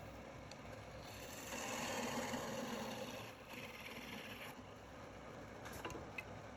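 Wood lathe turning, with a turning tool cutting into the spinning wood: a scraping burst about a second in that lasts around two seconds, then a shorter, higher one. A few light clicks near the end.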